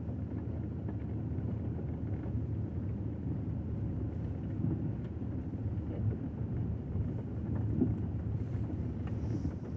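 Car driving slowly over a muddy, stony dirt road: a steady low rumble of engine and tyres, with a few faint ticks.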